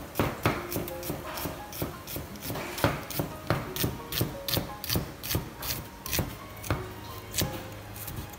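Cleaver slicing through a shallot onto a round wooden chopping block: a steady run of knife knocks on the wood, about two to three a second, stopping a little before the end.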